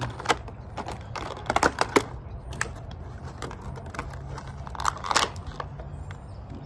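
Clear plastic packaging tray crackling and clicking as it is flexed and pried apart to free a figure part. Irregular sharp clicks, with a dense cluster between about one and two seconds in and another around five seconds.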